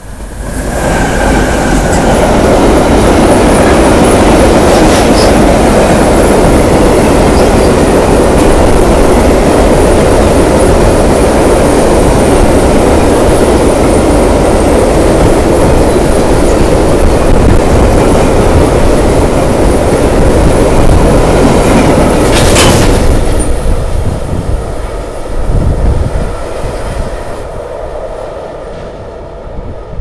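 A freight train of two electric locomotives hauling hopper wagons passes close by: loud, steady wheel-on-rail noise with a faint high squeal in the first few seconds. About 23 seconds in, as the last wagons pass, there is a single sharp crack, and then the noise fades as the train moves away.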